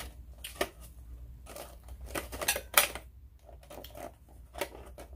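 Clear plastic dome lid being pressed and snapped onto an aluminium foil takeout pan: a run of irregular sharp plastic crackles and snaps, the loudest a little under three seconds in.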